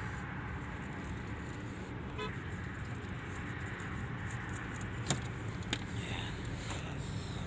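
Steady low hum of a vehicle engine running at idle, with a few light clicks and ticks, the loudest about five seconds in, as wires are handled at the car's fuse box.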